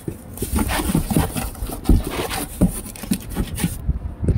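Cardboard rubbing and scraping as a hand grips and shifts a taped packet box inside a larger cardboard carton, with a quick run of short knocks and thumps throughout.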